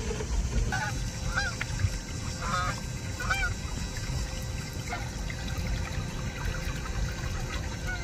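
A flock of geese honking as they fly over, with several short honks in the first half and the calls dying away after about three and a half seconds. A steady low rumble runs underneath.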